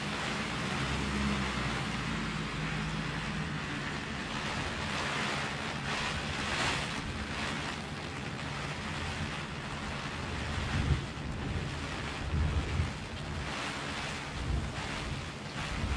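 Heavy rain falling on a clear plastic umbrella overhead, a steady hiss. In the second half, low gusts of wind buffet the microphone.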